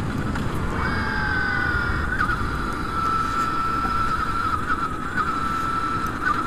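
Brammo Empulse R electric motorcycle's electric motor whining as a single high thin tone that jumps up about a second in, then eases slowly down in pitch and holds steady as the bike slows. Wind rush and road noise lie underneath.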